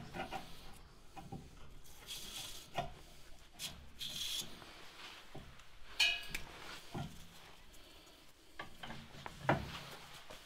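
A small wire brush scrubs and scrapes in the brake caliper bracket's slide-pin bores to clear out dirt and debris, among scattered knocks and rubs of hands on the brake parts. About six seconds in, a short metallic clink rings.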